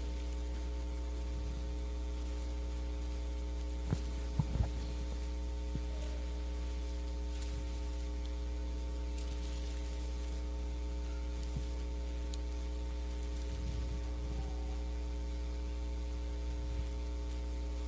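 Steady electrical mains hum through the microphone and sound system, with a few soft knocks about four seconds in.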